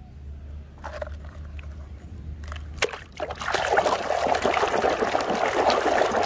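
Water sloshing and trickling as a muddy toy vehicle is rinsed in a plastic basin. It starts with a few light knocks, and the water grows louder and denser about three seconds in.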